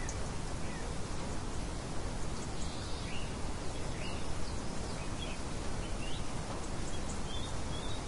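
Steady rain hiss with birds chirping over it: short high chirps scattered through the second half.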